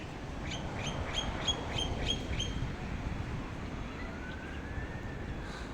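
Birds in a tree calling: a quick run of about eight short, sharp, repeated calls, about four a second, over steady outdoor background noise.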